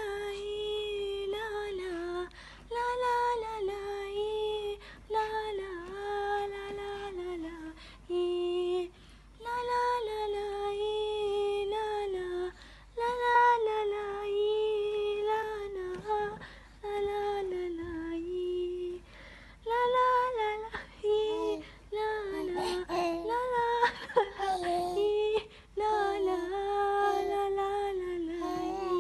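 A female voice singing a slow, wordless lullaby-like melody, long held notes in phrases of a few seconds with short breaks between them.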